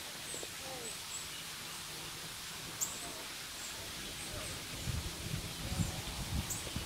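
Outdoor ambience by a pond: a steady hiss with scattered faint, high, short chirps of small birds. A low rumble comes in about two-thirds of the way through.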